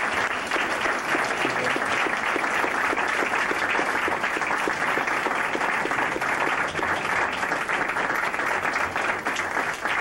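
Banquet audience applauding an award winner: many hands clapping steadily.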